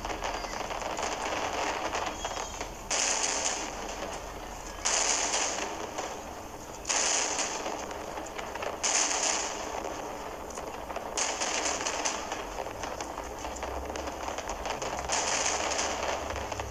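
Aerial fireworks crackling continuously, with a fresh, louder burst of crackle breaking out about every two seconds and fading away.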